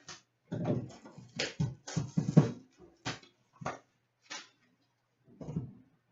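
Irregular rustles, crinkles and knocks of trading-card packaging being handled and opened: a tin of hockey card packs being opened and unwrapped.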